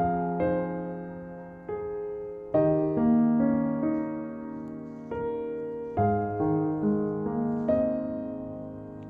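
Background music: a slow, gentle piano piece, single struck notes and chords each left to ring and fade.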